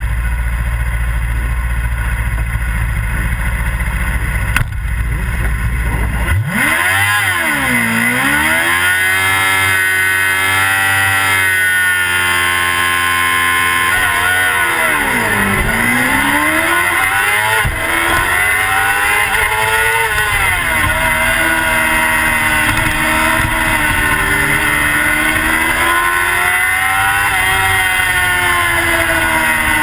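Sport motorcycle engine heard from an onboard camera, under a low wind rumble for the first six seconds. From about six seconds in, the engine revs rise and fall with the throttle, dipping twice, then runs hard and fairly steady as the bike accelerates.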